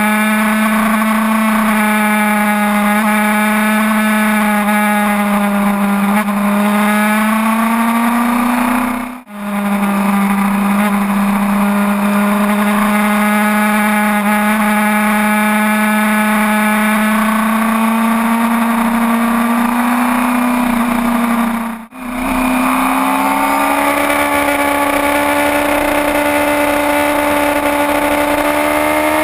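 Sport motorcycle engine held at steady high revs, heard from an onboard camera with wind noise over it. The sound dips out briefly twice, and near the end the revs climb steadily.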